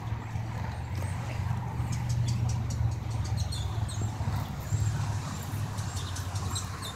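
A steady low engine rumble from distant traffic or an idling locomotive. Over it, from about two seconds in, come light crunching clicks of footsteps on gravel ballast.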